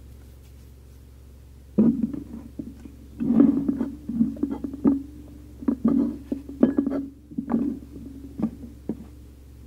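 A woman's voice murmuring low and indistinct in short irregular bursts, from about two seconds in until near the end, over a steady low hum.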